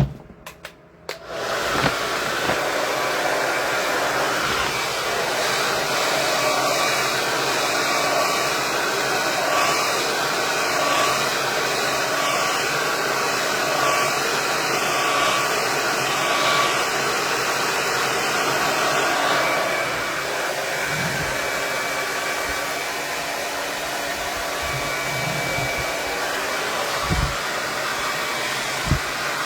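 KISS 1875 Watt Pro tourmaline ceramic hair dryer starting up after a few clicks, about a second and a half in, then blowing steadily. It drops a little in level about twenty seconds in.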